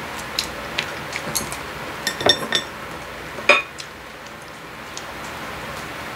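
Chopsticks clinking against a stainless-steel pan and dishes: a few scattered light clinks, a quick cluster about two seconds in, and the loudest clink about three and a half seconds in.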